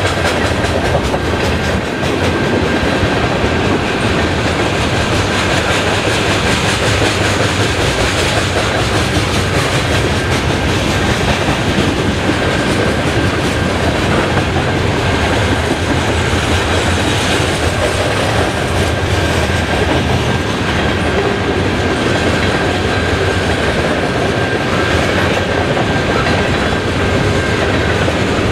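Freight train of tank cars rolling past: steady rumble and clatter of steel wheels on the rails, with a faint, high, steady tone above it.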